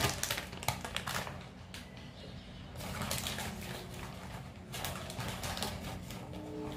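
A plastic measuring cup knocking a few times against a ceramic bowl of gram flour as it is lifted out, then two longer stretches of rustling handling noise.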